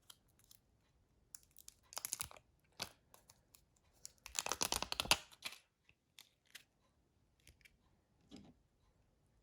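A thin adhesive sheet crinkling and being peeled as it is handled, in two rustling bursts about 2 seconds and 5 seconds in, with small clicks in between.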